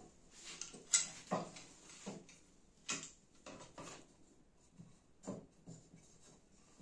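Irregular light knocks, taps and brief scrapes of a wooden workpiece and tools being handled on a work surface, with no power tool running.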